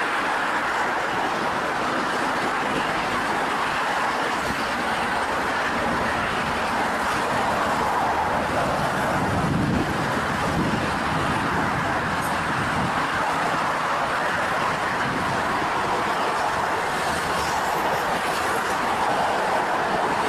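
Steady noise of a moving vehicle, even and continuous, with a low swell about halfway through.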